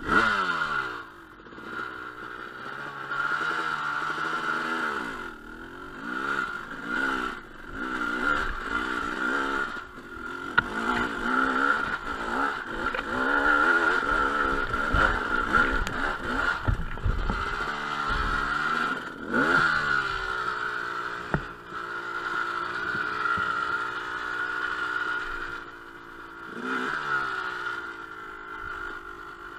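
Dirt bike engine revving up and down while riding, its pitch rising and falling repeatedly, with clatter and a few sharp knocks from the bike over rough ground.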